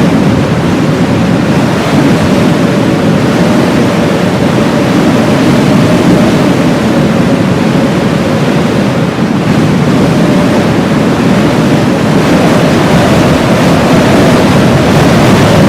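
Heavy blizzard wind blowing hard and steadily, with a faint wavering whistle-like tone riding on it.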